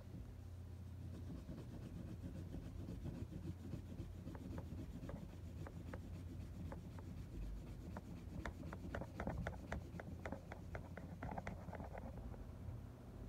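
Colored pencil shading back and forth on paper: a faint scratchy rubbing, with quick short strokes, about five a second, growing more distinct in the second half.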